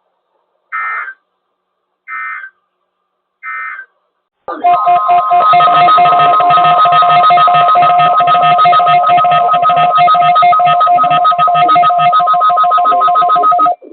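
Weather radio test signal: three short data bursts about a second and a half apart, then a loud, steady warning alarm tone lasting about nine seconds that cuts off suddenly.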